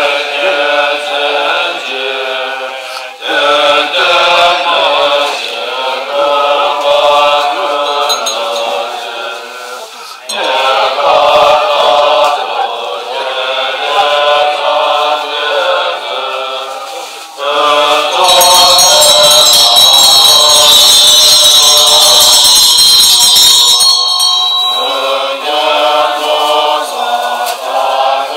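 Tibetan Buddhist monks chanting prayers together from their texts, a steady, pitched group recitation. About two-thirds of the way through, a loud noisy wash with high ringing tones takes over for several seconds and drowns the chant, which then resumes.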